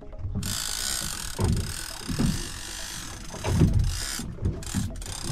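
Fishing reel ratcheting in a rapid, continuous buzz as line is pulled off, the sign that a shark has taken the bait and is running with it. It starts about half a second in and breaks up into separate clicks near the end, over dull low thumps.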